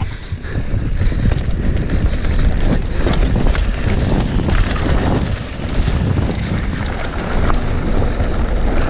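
Wind rushing over the microphone with the rumble, rattle and knocks of a downhill mountain bike running over a rough, rooty trail.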